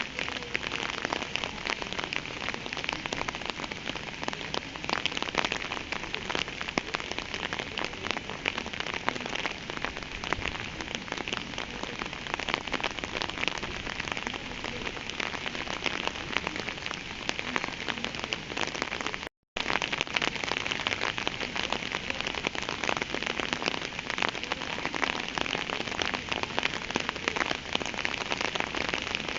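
Steady rain falling, a dense even patter of many small drop strikes. It cuts out completely for a split second about two-thirds of the way through, then resumes unchanged.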